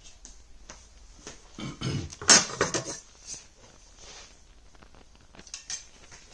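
Metal TV-mount bracket arms being picked up and handled: a cluster of knocks and clatter about two seconds in, and a few lighter clicks near the end.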